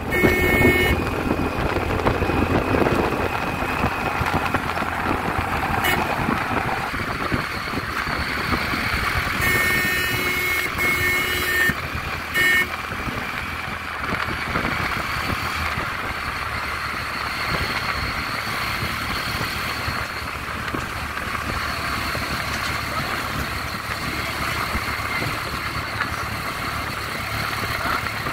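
Steady running and road noise of a vehicle driving along a road behind a dump truck. A few short pitched tones sound near the start and again about ten and twelve seconds in.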